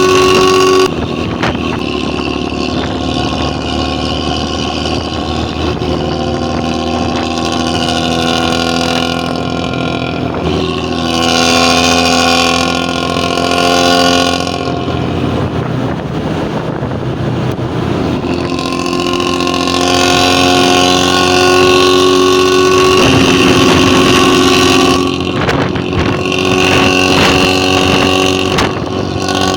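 Intercity bus's diesel engine and exhaust running loudly, a steady pitched drone whose pitch shifts every few seconds.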